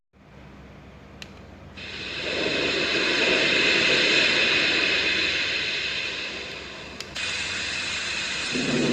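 White noise sleep machine playing a steady hiss that comes up about two seconds in; a click about seven seconds in switches it to a different steady noise sound.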